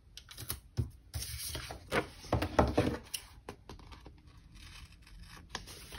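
A paper sticker being peeled off its backing sheet with a crackling rip, amid taps and paper rustling as it is handled and pressed onto a planner page. Busiest in the first half or so, quieter after.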